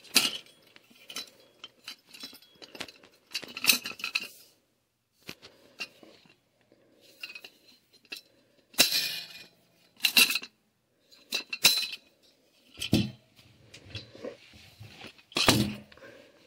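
Stainless steel transom-wheel legs and their wire-pull locking pins being handled: a dozen or so irregular metal clinks, clacks and rattles about a second apart as the pins are pulled and snap back into the tubes. The loudest knocks come about nine seconds in and near the end.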